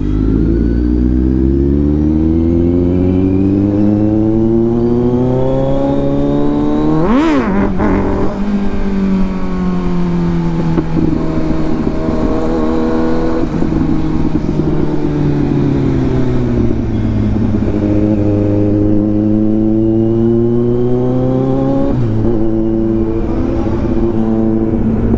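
Kawasaki Z900's inline-four engine under way in traffic, its pitch climbing slowly as it pulls, easing off, then climbing again, with a shift about 22 seconds in. A brief sharp rise and fall in pitch comes about seven seconds in.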